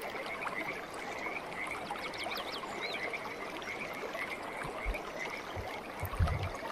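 Cooking oil poured in a thin stream into a hot cast-iron skillet over a wood fire, hissing and crackling steadily as the pan begins to smoke. A faint chirping repeats in the background, and a few low thumps come near the end.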